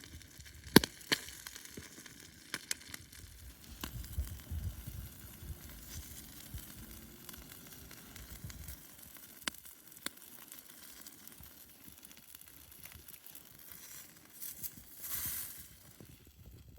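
Bacon sizzling on a roof tile over a campfire, with scattered sharp pops, the loudest about a second in, and a brief hiss near the end.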